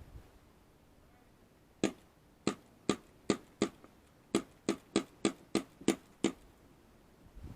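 Airsoft gun firing about a dozen single shots in quick succession, two or three a second, each a sharp snap. They start about two seconds in and stop about a second before the end.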